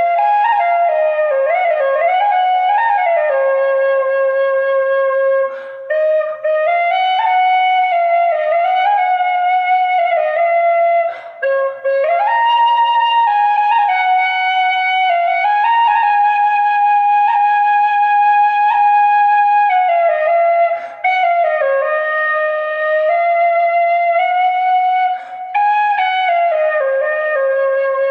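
Solo Irish flute playing a slow melody with long held notes and quick ornamented turns near the start, broken four times by brief pauses for breath.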